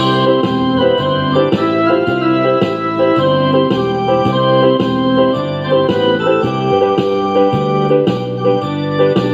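Background music played on a keyboard, electric piano or organ sound, with a steady, regular rhythm of changing chords.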